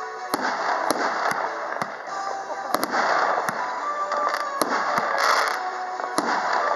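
A 17-shot firework battery (Category F3 cake) of 50 mm calibre firing a rapid series of sharp reports, roughly two a second, some in quick pairs. Background music runs underneath.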